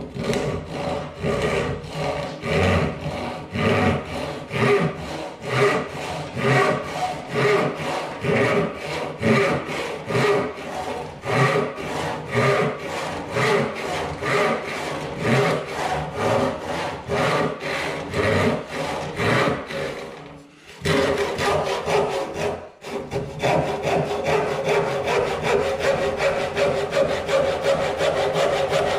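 Hand crosscut panel saw (8 TPI) cutting through a pine board in repeated back-and-forth rasping strokes. About two-thirds of the way through there is a short break, and after it the strokes come faster and more evenly.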